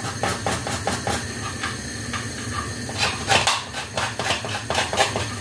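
A vanilla pod being picked and scraped open by hand: a quick run of small scratching clicks, with a louder cluster about three seconds in.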